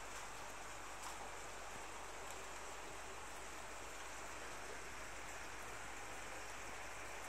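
A steady, soft rush of water noise, with a few faint ticks.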